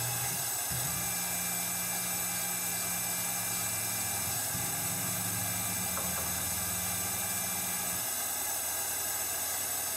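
Tormach PCNC 1100 milling machine spindle running a thread-forming tap into titanium through a spring-loaded tension-compression tapping head. The sound is a steady machine whine with hiss, and its low hum changes pitch about a second in, near the middle and about eight seconds in. The head's compression spring is too soft, so the tap skips on the hole before it catches and threads only partway down.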